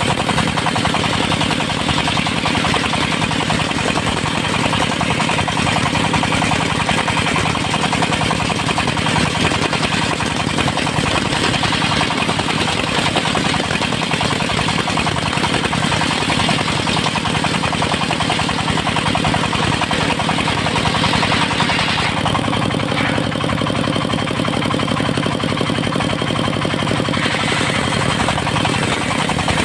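Engine-driven portable circular sawmill running steadily, its blade sawing a teak log into boards, with a dense mechanical rattle. The higher hissing part of the sound eases about two-thirds of the way through and partly returns near the end.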